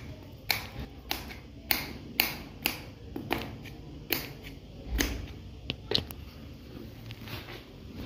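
Kitchen knife chopping cucumbers directly on a hard tiled floor: about a dozen sharp knocks as the blade cuts through and strikes the tile, irregular at one or two a second, fewer near the end.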